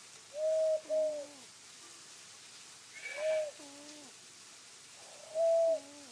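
Black-collared starling giving low, hooting whistled calls, three in all. Each is a steady note that drops to a lower note. These are odd, unsong-like calls from a starling that never learned its species' song.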